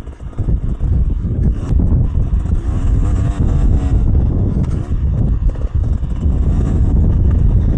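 Beta 300 Xtrainer two-stroke dirt bike engine being ridden hard, its pitch rising and falling as the rider works the clutch and throttle, with a brief drop just after the start.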